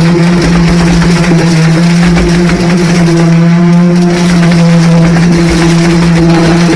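A motor running loudly and steadily at constant speed, with an even hum that does not change.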